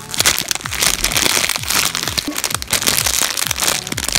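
Clear plastic bags around squishy toys crinkling and crackling as hands grip and turn them.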